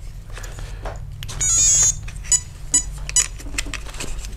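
Holmes Hobbies SHV650 steering servo working the front steering of an RC crawler: a steady low buzz as it pushes, a few clicks, and a short high-pitched whine about a second and a half in as the motor drives. The steering is running into its stops because the servo's endpoints are not yet set.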